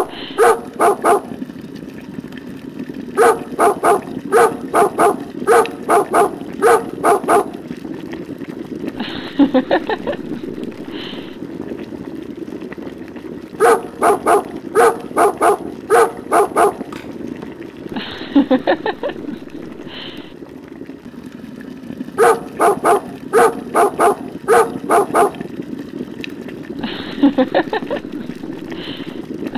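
A dog barking in quick runs of about two barks a second. Each run is several barks long, and the runs come back every few seconds with pauses between them.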